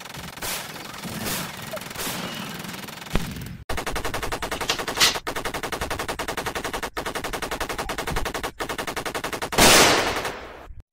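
Dubbed-in gunfire sound effects. A few single shots come about a second apart, then a long burst of rapid automatic fire. Near the end, one louder shot fades out.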